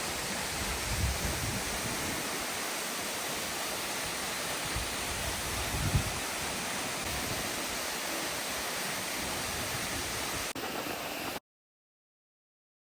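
Waterfall rushing: a steady, even wash of falling water, with two brief low thumps about one and six seconds in. It cuts out abruptly to silence near the end.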